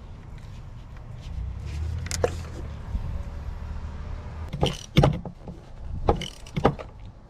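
Hand tools clicking and knocking as a ratchet with an extension and spark plug socket is handled and fitted down into a spark plug hole. There are several sharp clicks, the loudest about five seconds in, and a low rumble before them.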